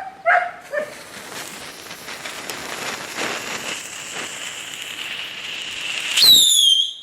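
A lit whistling firework hissing steadily for about five seconds, then letting out a loud, piercing whistle that slides down in pitch for most of a second before cutting off.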